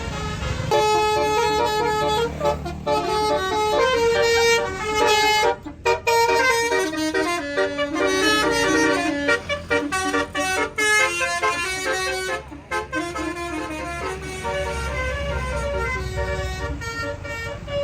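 Tour bus's basuri telolet horn, a multi-tone musical air horn, playing a melody of short pitched notes in quick steps. It starts about a second in, with brief breaks around six and thirteen seconds in.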